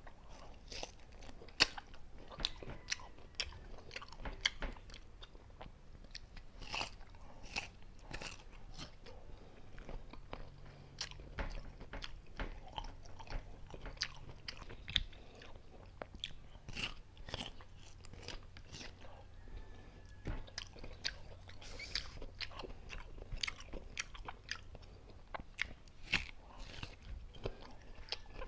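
Close-up crunching and chewing of unripe green mango, with crisp, irregular crunches throughout.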